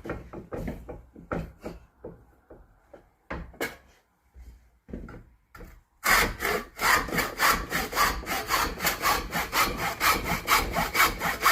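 Freshly sharpened tenon saw test-cutting wood, cutting very sharp. A few short, uneven strokes at first, then about six seconds in a fast, steady run of louder back-and-forth strokes.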